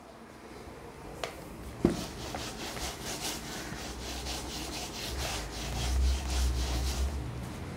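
Handheld whiteboard eraser rubbing back and forth across a whiteboard in quick repeated strokes, about three a second. Two short knocks come in the first two seconds.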